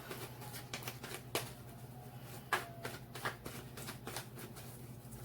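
A tarot deck being shuffled and handled by hand: faint scattered card flicks with a few sharper clicks, over a low steady hum.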